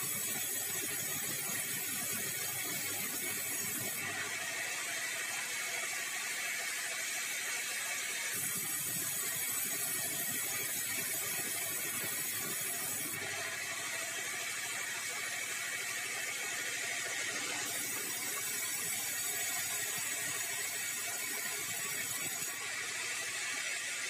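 Large vertical bandsaw headrig running and sawing bengkirai hardwood timber on the log carriage: a steady mechanical noise whose high hiss changes abruptly every four to five seconds.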